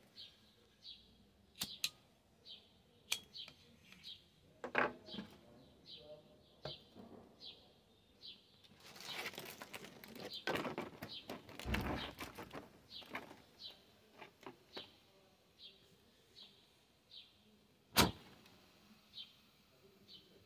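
Crinkling and rustling of an aluminium-foil windscreen being set up around a pot on a small alcohol stove, loudest for a few seconds in the middle, with scattered clicks and knocks of handling and one sharp knock near the end. A small bird gives a short high chirp over and over.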